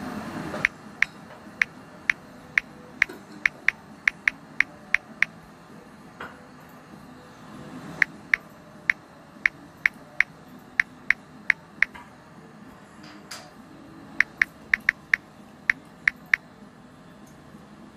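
Smartphone on-screen keyboard key-press clicks: short high ticks about two or three a second, in three runs of roughly a dozen, ten and nine taps as digits and letters are typed.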